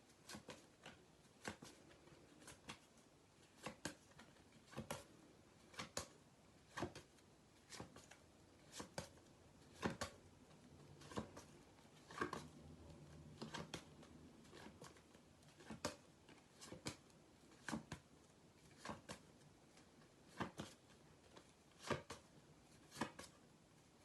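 Faint, soft card-on-card clicks about once a second as phonics sound cards are flipped over one at a time.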